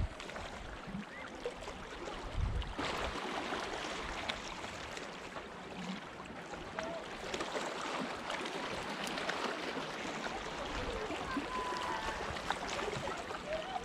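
Sea water washing and lapping against shoreline rocks, a continuous rushing wash with small swells in loudness.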